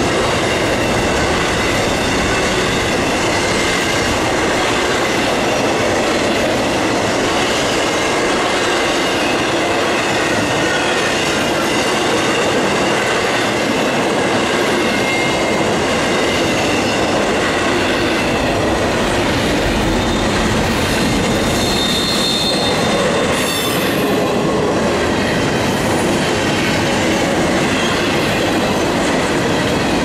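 Double-stack intermodal well cars rolling past at speed: a steady rumble and clatter of steel wheels on rail, with thin high squealing from the wheels. A brighter squeal comes a little past two-thirds of the way through.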